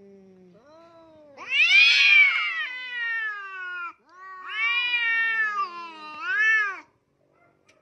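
Domestic cats yowling at each other in a face-off, a threat display. A low steady moan swells about a second and a half in into a loud yowl that falls in pitch, then a second long yowl about four seconds in ends in a rising-and-falling wail.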